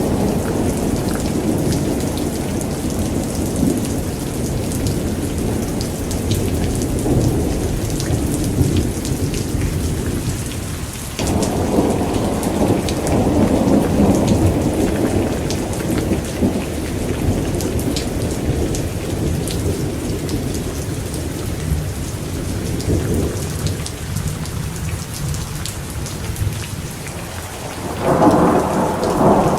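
Thunderstorm: heavy rain hissing steadily with many pattering drops, under rolling thunder that swells and fades. A new roll of thunder starts abruptly about a third of the way in, and a louder one breaks near the end.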